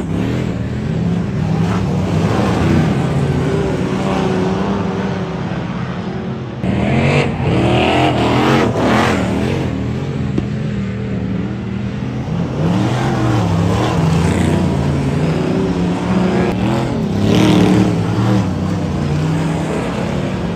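Several speedway race cars lapping a dirt oval track, their engines revving up and easing off as they run through the turns and pass by.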